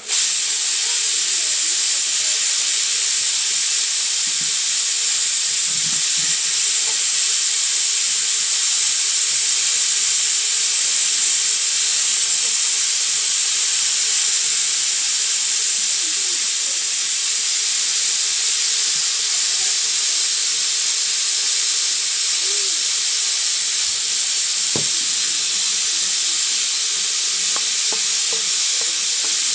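Food sizzling steadily in a hot pan, a loud even hiss that starts suddenly, with a faint knock or two about three-quarters of the way through.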